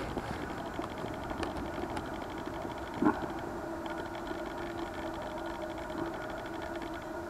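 Steady hiss with a faint low hum from a faulty microphone, and a single knock about three seconds in.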